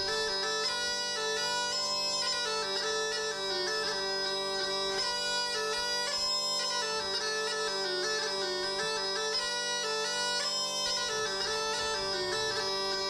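Bagpipe music: a stepping melody played over a steady, unbroken drone.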